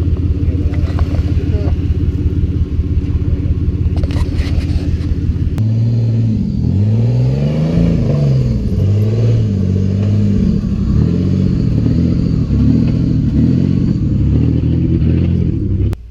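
Off-road 4x4's engine running under load. It holds a steady pitch at first, then about five seconds in the revs rise and fall again and again as the throttle is worked. It cuts off abruptly near the end.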